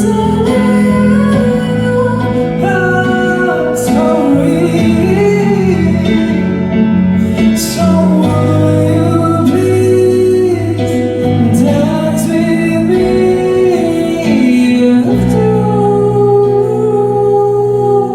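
Live pop song performance: held, gliding sung notes over guitar and band accompaniment, loud and continuous.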